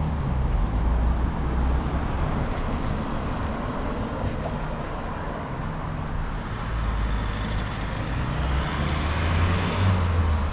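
Road traffic passing close by: vehicle engines and tyres with a steady low rumble, growing louder from about six seconds in as a vehicle goes past.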